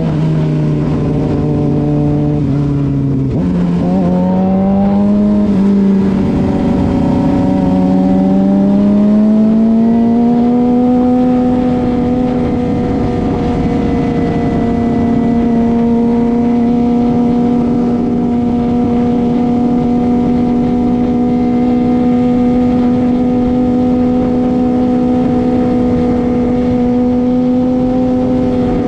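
Suzuki GSX-R600 inline-four engine heard from the rider's seat: its note sinks slightly, then about three seconds in jumps and climbs steadily for several seconds as the bike accelerates, then holds a steady cruising pitch.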